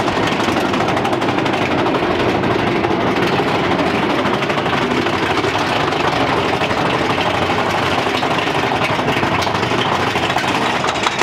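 Big Thunder Mountain Railroad mine-train roller coaster running along its track: a loud, steady rumble with a fast rattle from the cars.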